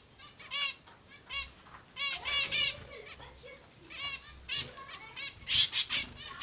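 Zebra finches calling: short, nasal, arched calls repeated in quick runs of several a second, loudest near the end.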